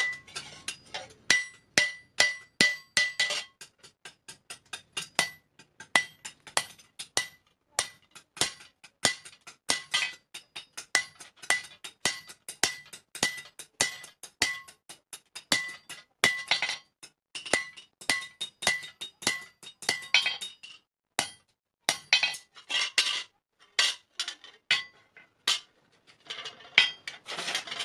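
Hand hammer striking steel on an anvil in a fast, steady rhythm of about two to three blows a second, each with a bright metallic ring. The hammering pauses briefly twice in the second half.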